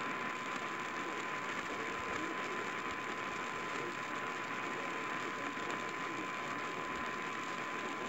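AM radio receiving a weak distant station on 780 kHz: a steady hiss of static with crackle, and a constant tone held over it.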